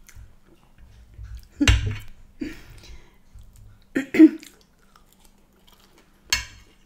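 Close-miked chewing of chips and baked beans, with a fork clicking against the plate. A few short louder sounds come about two, four and six seconds in, the one near four seconds the loudest.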